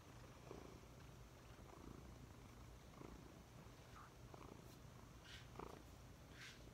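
Lynx point Siamese cat purring softly and steadily, with a few faint scuffs near the end.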